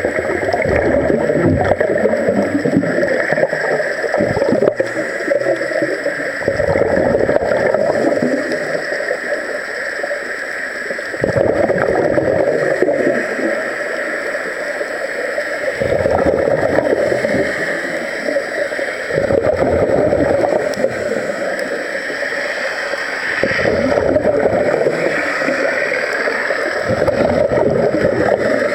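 Scuba regulator exhalations heard underwater: bursts of rising air bubbles, one every four seconds or so, with quieter breaths in between.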